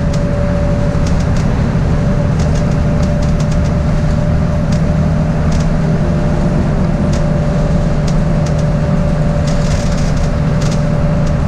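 Inside a bus, the engine and road give a steady, loud drone with a constant hum, while the cabin rattles and creaks in short, scattered clicks.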